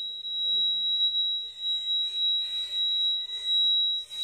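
A steady, high-pitched pure tone held without a break, with a fainter tone an octave below it and faint rustling and rumbling underneath.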